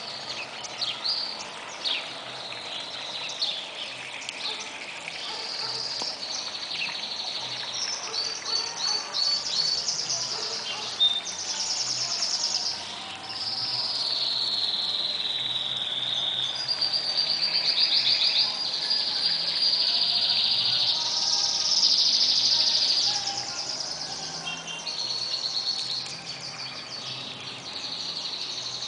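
Small songbirds singing one song after another: high trills, rapid runs of repeated notes and falling whistles, louder in the second half.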